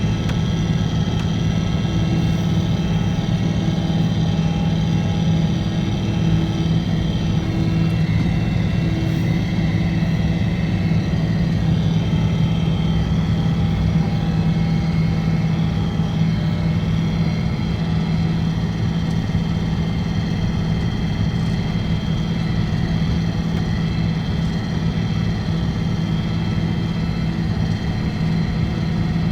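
Loader's diesel engine running steadily as the machine pushes snow, a constant low hum.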